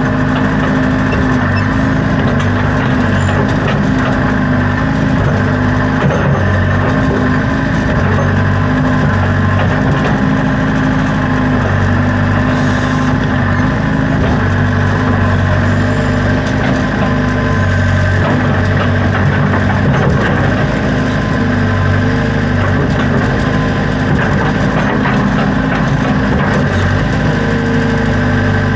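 Backhoe's diesel engine running steadily, with a faint higher whine coming and going in the background.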